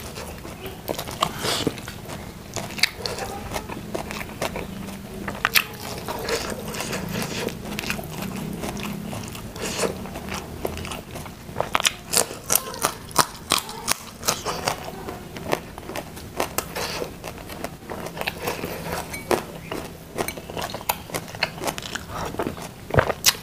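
Close-miked eating: crunching, biting and chewing of raw vegetables such as long beans, with many short sharp crunches and mouth clicks.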